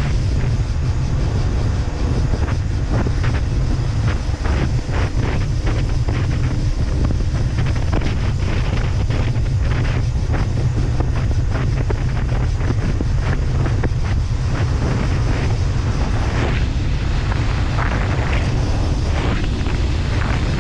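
Heavy wind buffeting on the microphone of a Husqvarna WRE125 motorcycle ridden at speed. The bike's two-stroke single-cylinder engine runs steadily underneath the wind.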